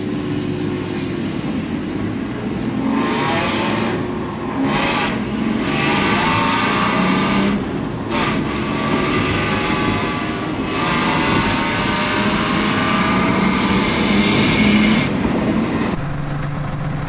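Ford Ranger race truck's engine accelerating hard through the gears, heard from inside the cab: the engine note climbs, then drops back at each upshift, several times. Near the end it gives way to an engine idling.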